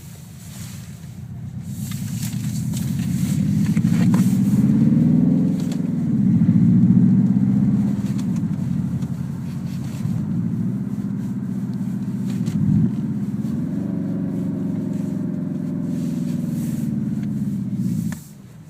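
Simulated engine sound from the Renault R-Link R-Sound Effect played through the car's speakers, its pitch rising and falling several times like an engine being revved and eased off. It cuts off suddenly near the end.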